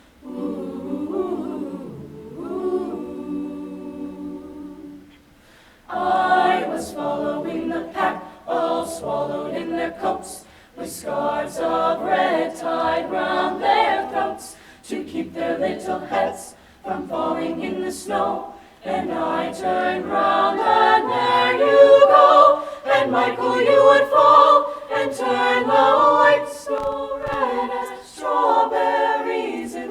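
School chamber choir singing a cappella in harmony: a soft held chord for the first few seconds, then, after a brief break, louder rhythmic singing from about six seconds in.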